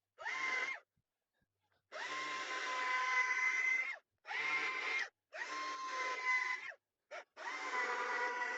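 Small electric saw cutting wood, its motor whining in short runs that switch on and off about five times as a shape is cut out.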